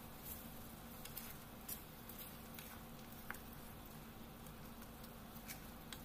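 Spaghetti and meatballs in tomato sauce sizzling faintly in a frying pan. Wet squishing and scattered clicks come as a spatula tosses the noodles around the pan, over a low steady hum.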